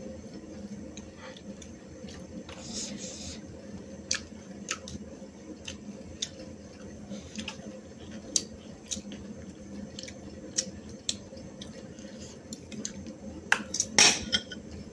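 Close-up eating noises: scattered wet clicks and smacks of people chewing a rice-and-curry meal eaten by hand. Near the end a steel serving spoon clatters against steel dishes, the loudest sound.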